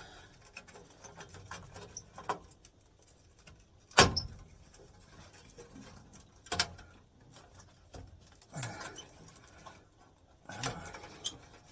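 Scattered clicks, knocks and rustling of hand work on furnace wiring and a control board, with a sharp knock about four seconds in and another a little after six seconds.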